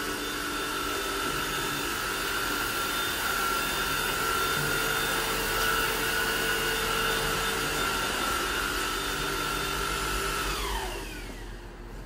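Hoover ONEPWR Evolve Pet cordless upright vacuum running at full speed on a hard floor, with a steady high motor whine. About ten and a half seconds in it is switched off and the whine winds down to a stop over about a second.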